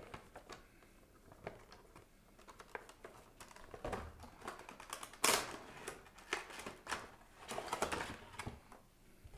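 Cardboard figure box and its clear plastic insert being handled: scattered light taps, clicks and scrapes, with one louder sharp crack about five seconds in.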